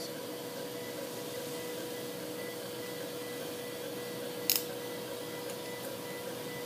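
Steady hum of operating-room equipment, a constant mid-pitched tone over an even hiss. One sharp click about four and a half seconds in.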